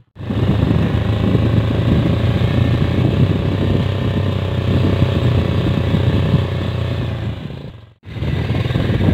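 Small underbone motorcycle's engine running steadily while riding, heard from on the bike with a dense rushing road noise. The sound cuts off abruptly near the end and then starts again.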